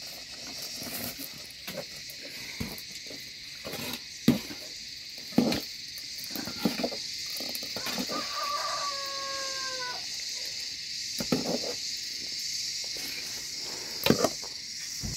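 Metal ladle and spoon clinking and scraping against aluminium pots and steel plates while food is dished out, with several sharp clinks, over a steady high insect chorus. A brief animal call comes about halfway through.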